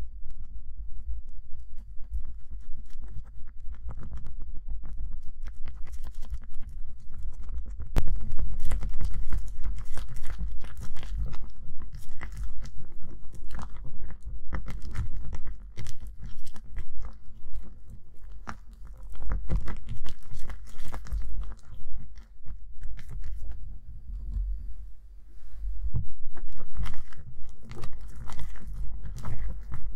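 Thick, sticky homemade slime being stirred with a plastic spatula in a glass bowl: a dense run of squelching, crackling sounds that grows louder about eight seconds in. Near the end the slime is pressed and kneaded by hand.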